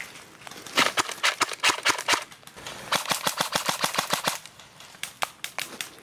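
Airsoft rifles firing bursts of rapid snapping shots: one burst about a second in, a longer, faster burst around three seconds in, then a few scattered single shots near the end.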